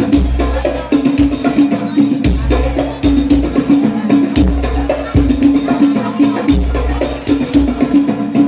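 Sholawat devotional music played loud through a PA sound system, with rapid frame-drum and tambourine strokes over a deep pulsing bass beat. It is heavy and slightly unclear from being recorded close to the loudspeakers.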